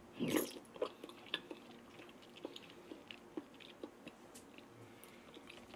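A person eating custard pudding, with close mouth sounds: one louder mouthful just after the start, then small clicks of chewing and smacking spread through the rest.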